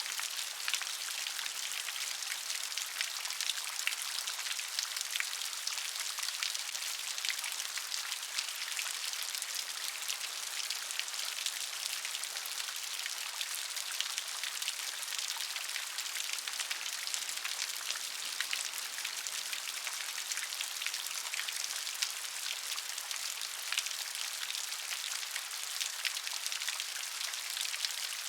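Steady rain falling, a dense patter of many small drops on a surface.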